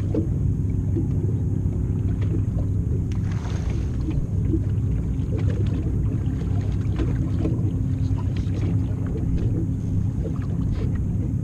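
A boat's motor running with a steady low hum, with scattered small knocks over it.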